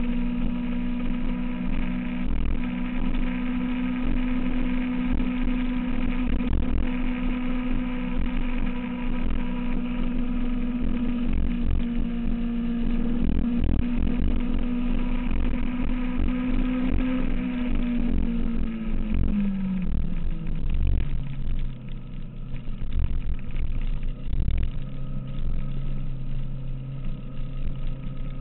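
2006 Kawasaki ZX-6R's inline-four engine running at a steady speed, its note holding for most of the time, then falling over about two seconds past the middle and settling much lower as the revs drop. Wind rumbles on the camera throughout.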